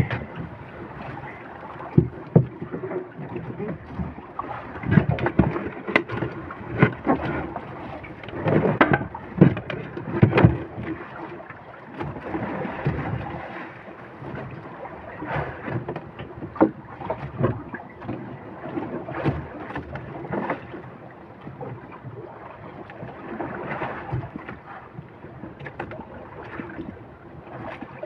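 Wind on the microphone and water lapping against a small fishing boat's hull, with irregular knocks and bumps, most of them about 5 to 11 seconds in.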